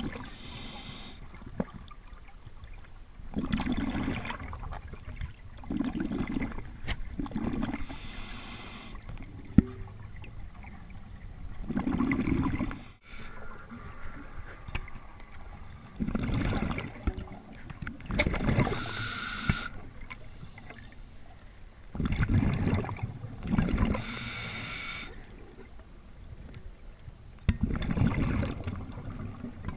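Scuba diver breathing underwater through a regulator, heard from the diver's camera: a short hissing inhalation, then a longer rush of exhaled bubbles, repeating about every five to six seconds.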